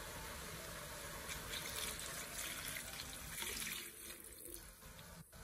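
Coconut milk poured in a stream into a pan of snake gourd frying in oil, splashing over a steady sizzle. Near the end the sizzle fades as the milk covers the gourd.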